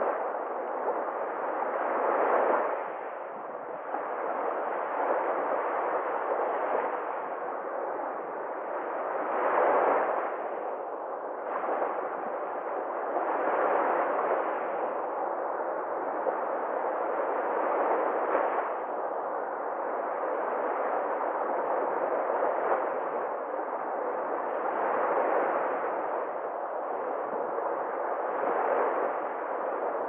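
Sea surf: small waves breaking and washing up a pebble beach, the rush of water swelling and ebbing every few seconds.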